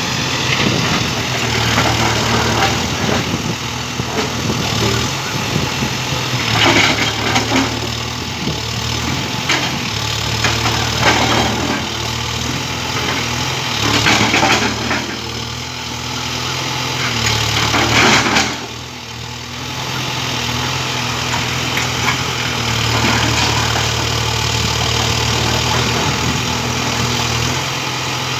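Case 851EX backhoe loader's diesel engine running steadily, with a handful of short, noisy bursts every few seconds and a brief dip in level about eighteen seconds in.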